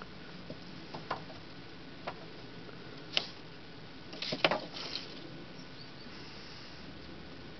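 Norwegian Forest cats' paws scuffling and tapping on a wooden bench as they play-fight: a few scattered light taps, then a short cluster of sharper knocks about four and a half seconds in, over a steady outdoor hiss.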